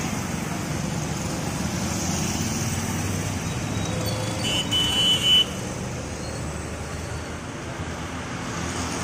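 Street traffic of motorcycles, scooters and cars passing, engines running steadily, with a vehicle horn sounding briefly about halfway through.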